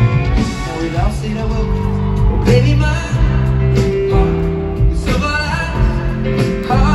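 Live pop music played over a stadium PA: a sung melody with long held notes over guitar and heavy bass, recorded from the crowd.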